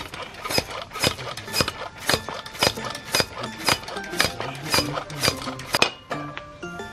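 Music with held tuned notes, over a run of sharp, evenly spaced strokes about two a second that stop about six seconds in.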